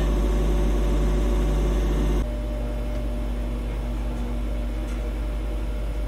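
American Harvest 6039 corn/pellet stove running: a steady hum from its newly replaced blower and stirrer motors. About two seconds in, the hum drops a little and its pitch pattern changes.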